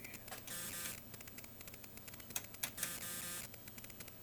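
Bench test equipment being adjusted to raise the input signal: two sharp clicks a quarter-second apart and two short mechanical whirs, over a faint fast ticking.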